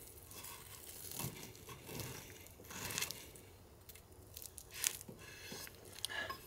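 Kitchen knife cutting through the charred, dried outer husk of a charcoal-roasted bamboo shoot on a wooden cutting board: faint crunching and crinkling of the burnt skin in a few separate strokes.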